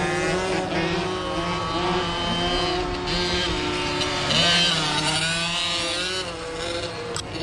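Several dirt-track racing motorcycle engines revving as they race around the track, their pitches stepping up and down with throttle and gear changes. One bike passes closer about halfway through, and it is the loudest moment.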